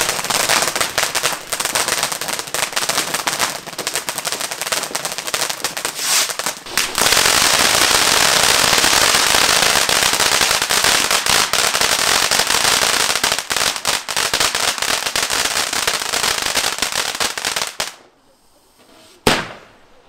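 Ground fountain firework burning, spraying sparks with a dense crackle that thickens about seven seconds in into a loud, steady hissing crackle, then dies away shortly before the end. One sharp bang follows near the end.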